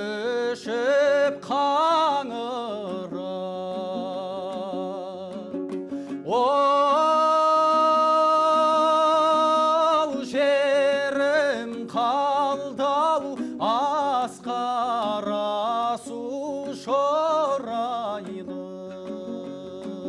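Kazakh folk song sung to a plucked dombra, in a melismatic style with bending, ornamented phrases and one long held note with vibrato about a third of the way through.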